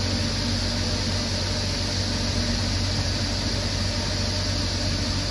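Panda portable spin dryer running, its drum spinning out a wet cotton tapestry with a steady motor hum and whir.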